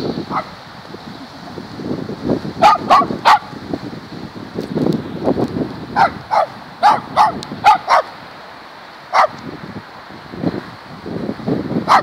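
Dog barking in short runs: three quick barks about three seconds in, a run of several more between six and eight seconds, and a single bark near nine seconds.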